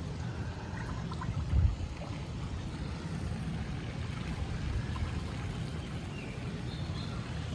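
Swimming pool water trickling and sloshing in a steady wash, with one dull low thump about a second and a half in.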